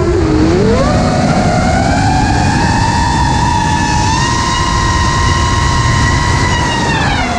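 Four brushless motors (XING X2207 2450KV) of a 5-inch FPV quadcopter whining with the throttle: the pitch climbs about half a second in, holds high and steady, and drops again near the end as the throttle comes off, over a low rush of wind.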